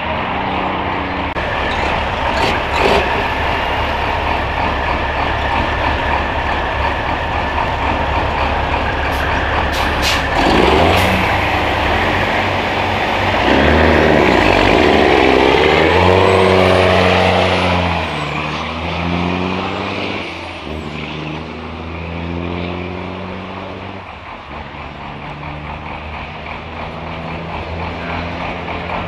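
Diesel semi-truck engines running, then revving hard for several seconds midway, their pitch climbing and dropping in steps, before settling back to a lower, steady run.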